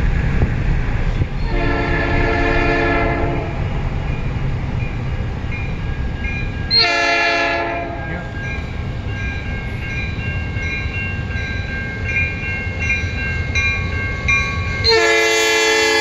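Freight locomotive air horn sounding a multi-note chord in three blasts: one about two seconds long near the start, a shorter one about seven seconds in, and another starting near the end. Under the first half runs the low rumble of the passing train.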